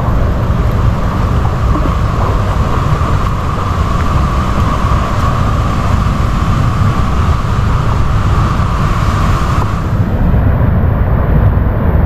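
Loud, steady rushing of a fast jungle river and nearby waterfall, with a strong low rumble under it. The high hiss thins out about ten seconds in.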